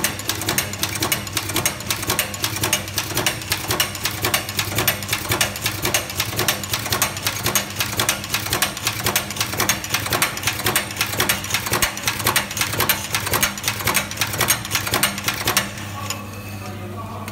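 HY-103J automatic metal zipper hole-punching machine running, its punch clattering in a fast, even rhythm of several strokes a second. Near the end the punching stops suddenly, leaving a steady motor hum.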